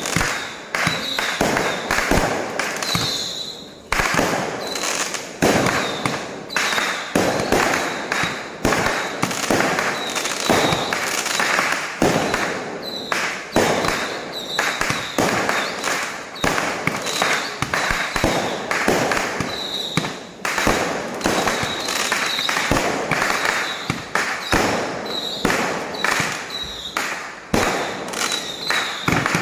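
Fireworks going off in rapid succession: sharp bangs about one to two a second, each trailing off in crackle, with no let-up.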